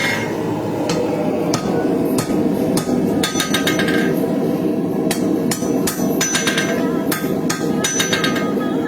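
Hand hammer striking a hot steel knife blank on an anvil, offsetting one side to form an integral bolster: irregular blows about one or two a second, several followed by a short metallic ring, over a steady background noise.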